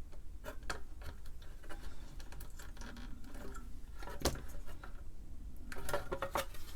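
Light clicks and taps of hand tools and small electronic components being handled on a circuit board, with a sharper click about four seconds in and a quick run of clicks near the end, over a low steady hum.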